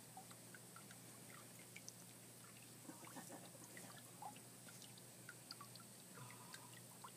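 Near silence, with faint scattered small wet clicks and ticks from gloved hands working the skin of a dead rattlesnake.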